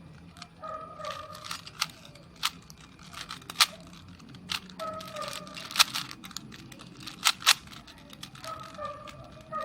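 Rubik's Cube being turned fast by hand: an irregular run of plastic clicks and clacks as the layers snap round, a few of them sharp and loud.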